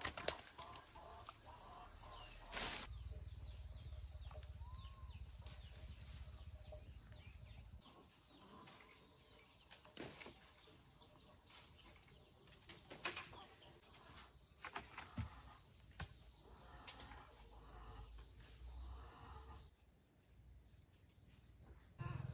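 Faint outdoor rural ambience: a steady high-pitched hum with scattered light clicks and a few brief, faint bird calls.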